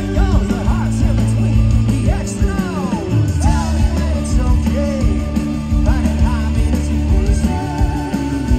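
Live rock band playing through a large PA: electric guitars, bass and drums with a lead vocal singing in phrases over them, heard from the crowd.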